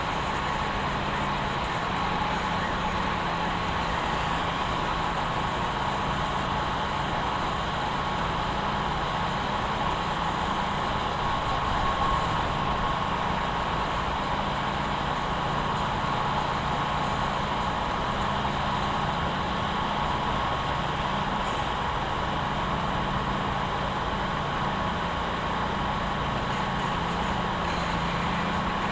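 Steady, unchanging low engine hum like an idling vehicle, with a faint steady high-pitched tone over it.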